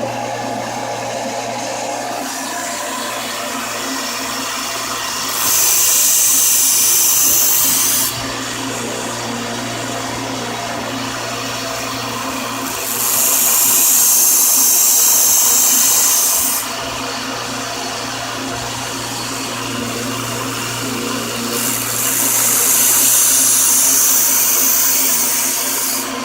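Electric grinder or sander motor running steadily while a knife blade is pressed to the abrasive three times, each pass giving a loud, high grinding hiss of about three to four seconds. The serrations of the knife edge are being ground down.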